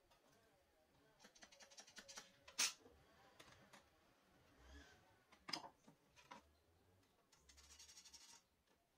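Faint handling sounds of a small wooden jig and metal hand tools on a table saw top: a run of quick fine ticks about a second in, a sharp click about two and a half seconds in, another click past the middle, and a fine rattling scrape near the end.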